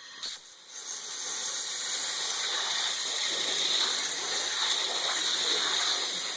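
Waterjet cutting machine hissing steadily as its jet cuts aluminum plate, building to full strength within the first second.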